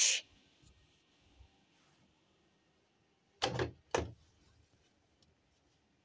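Two short, dull thumps about half a second apart, then a faint click, against a quiet room.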